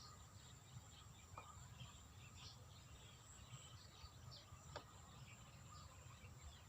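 Near silence: faint outdoor ambience with scattered faint high chirps, such as birds and insects, and two faint clicks.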